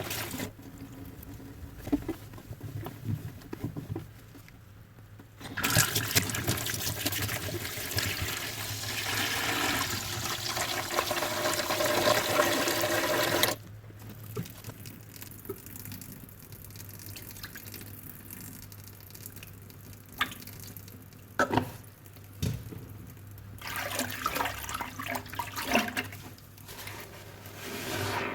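A soapy sponge being squeezed with wet squelches and crackles. A few seconds in, water runs loudly over it for about eight seconds and then cuts off suddenly, and the squeezing goes on.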